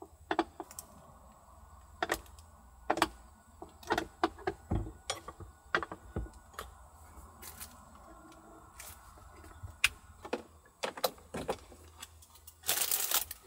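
Irregular clicks and knocks from things being handled, about a dozen sharp taps spread through, with a brief rustle near the end.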